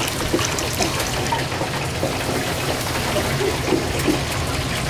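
Chicken deep-frying in hot oil: a steady sizzle with scattered fine crackles.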